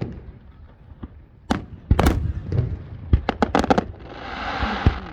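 Aerial fireworks shells bursting: sharp bangs at the start and twice more about two seconds in, then a quick volley of cracks, followed near the end by a rushing hiss that swells and fades.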